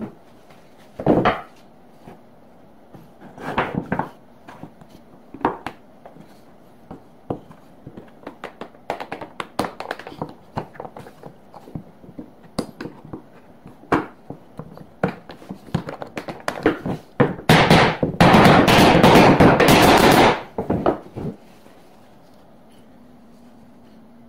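Wooden pieces of a hand-cut four-way lap joint knocking and clicking against each other and on a wooden workbench as they are picked up, set down and fitted together, with scattered single knocks and quicker runs of small clicks. About two-thirds of the way through comes some three seconds of loud continuous scraping, the loudest part.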